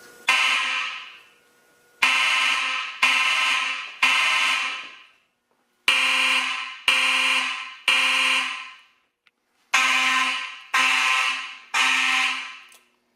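Fire alarm sounding loudly in a temporal-three evacuation pattern: tones struck in groups of three about a second apart, each ringing and then fading, with a longer gap between groups. It has been set off by a pulled Simplex pull station.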